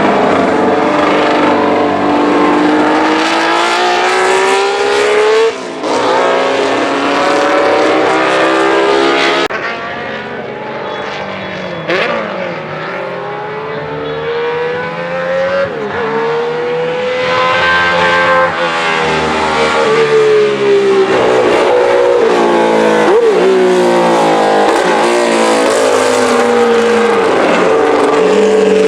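Alfa Romeo 33 SP 12 racing prototype's flat-12 engine running hard on track. Its pitch climbs through each gear and drops sharply at the shifts, about half a dozen times. It is quieter for several seconds in the middle, then loud again.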